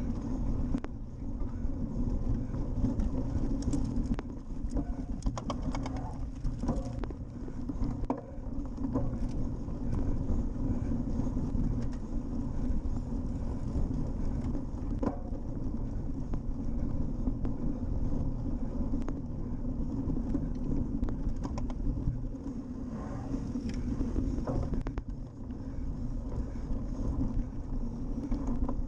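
Steady low rumble of wind on the microphone and tyres running over rough grass on a cyclocross bike, with scattered rattles and clicks from the bike over bumps.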